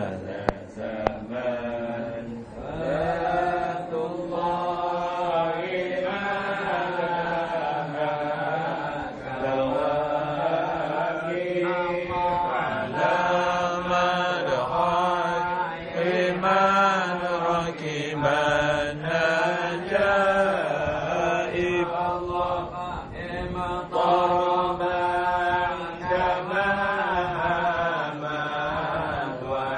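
Men's voices chanting Arabic dhikr (zikir), long drawn-out melodic lines that rise and fall.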